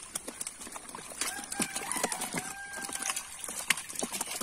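Live fish flapping and slapping in a wet net and water splashing as they are grabbed and dropped into plastic barrels, a quick scatter of wet slaps and drips. A faint drawn-out pitched call is held for about two seconds near the middle.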